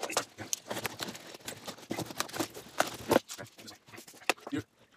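Cardboard shipping box being opened: packing tape cut and torn, cardboard flaps pulled back and folded open, with an irregular run of scrapes, rustles and light knocks.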